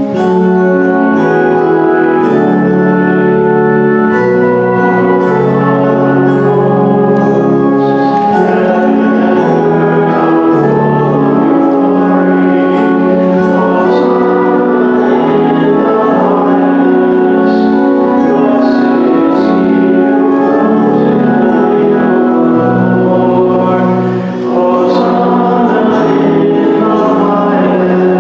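Church choir singing a sacred piece over held instrumental chords, the music moving through sustained chords without pause.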